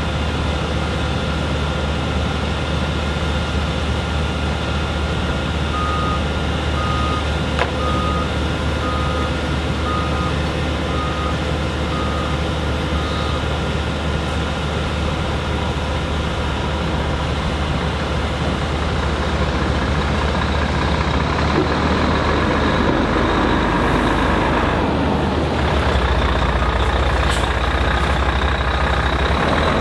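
Heavy vehicle engine running steadily, growing louder in the last third. A reversing alarm beeps about once a second for several seconds, then fainter again near the end, with one sharp click among the beeps.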